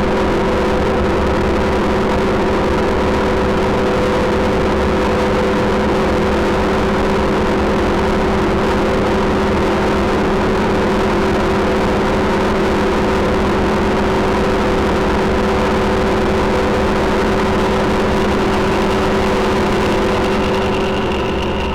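Elektron Digitone FM synthesizer playing a steady drone: several held tones layered over a dense noise wash, easing slightly in level near the end.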